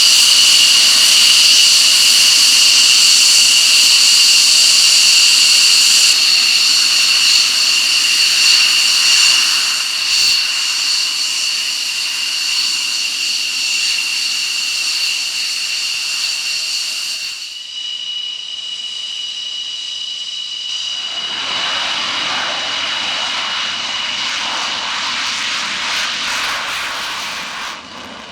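Jet aircraft engine running with a loud, steady high-pitched whine. The whine changes abruptly about 17 seconds in, and a broad rushing roar builds from about 21 seconds.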